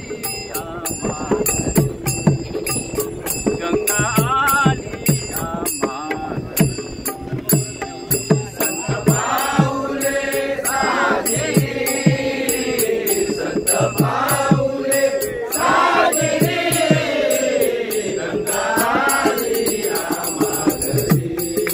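A group of men singing a Marathi abhang (devotional song), kept in time by small hand cymbals (taal) struck in a quick, steady beat. A single voice leads at first, and the whole group joins in loudly about nine seconds in.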